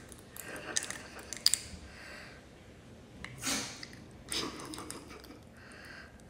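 A small dog licking and smacking its lips around a medicine dropper, with a run of wet clicks in the first two seconds and two short breathy bursts near the middle.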